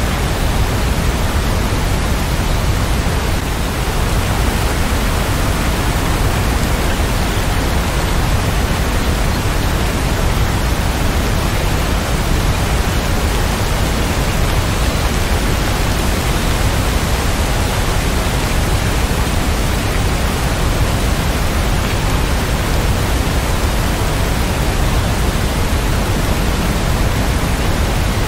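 Steady rain: an even, unbroken hiss with most of its weight in the low end, no separate drops and no thunder.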